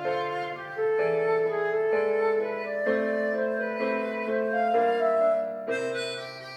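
Harmonica playing a sustained melody over a piano-led pop instrumental backing track, the chords changing every second or so.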